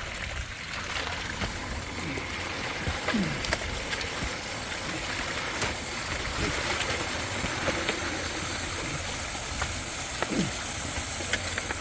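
Steady rush of water from a leaking underground water main line, with a few short falling squeaks over it.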